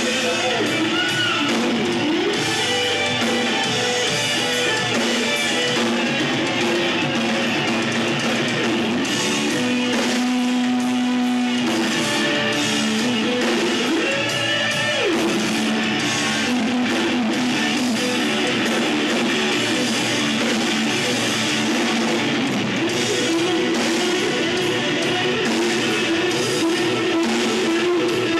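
Live rock band playing, led by guitar, with a pitched melody line bending over a full, steady band sound.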